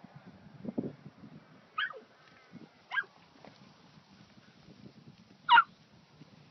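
Kelpie puppy giving three short, high-pitched yips spaced a second or two apart, the last the loudest, as it works a group of calves.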